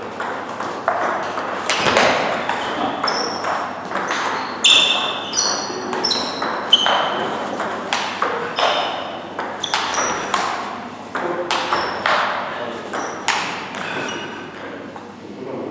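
Table tennis rally: the ball clicks off rubber-faced bats, one faced with Palio AK47 Red, and pings on the table in a quick irregular rhythm of attacking topspins and a smash against chopped returns.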